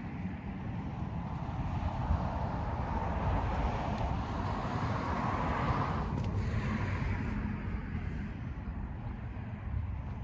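A car driving: a steady low engine and road rumble, with a band of road or wind noise that swells over the first six seconds or so and then drops off suddenly.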